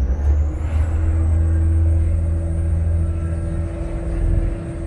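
Vaporetto water bus's diesel engine running, a deep steady rumble with a constant hum over it.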